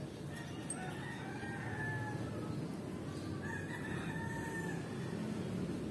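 A rooster crowing twice, each call long and drawn out, over a steady low rumble.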